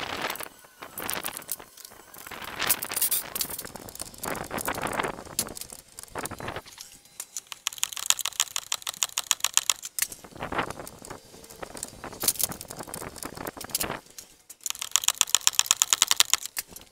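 Hand ratchet wrench clicking as bolts on the front lower control arm are worked loose, in runs of rapid even clicks about eight seconds in and again near the end, with scattered knocks and scrapes of tools and parts in between.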